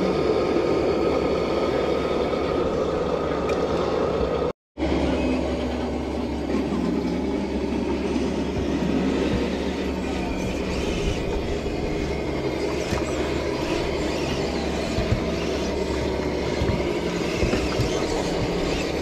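Traxxas TRX-4 Defender RC crawler's electric motor and gearbox whining steadily as it crawls over wooden planks, with occasional knocks from the tyres on the boards.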